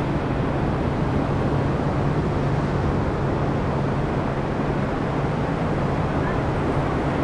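Steady roar of wind on the microphone and ocean surf, with a constant low hum underneath.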